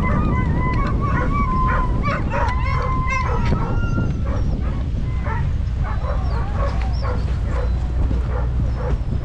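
A group of sled dogs whining, howling and yipping: several wavering, rising calls in the first few seconds, then short yips and barks. A steady low rumble of wind on the microphone runs underneath.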